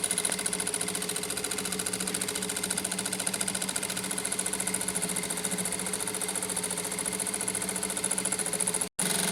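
Jack A4 single-needle lockstitch industrial sewing machine running steadily at speed, a fast even stitching hum. It cuts out for an instant near the end and resumes.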